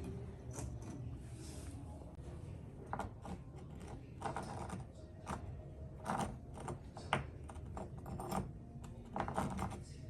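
Irregular light clicks and knocks, a dozen or so spread unevenly, of objects being handled and set down.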